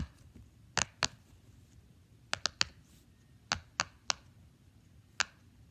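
Silicone pop-it fidget toy having its bubbles pressed one after another, giving about ten sharp pops at an uneven pace, some in quick runs of two or three.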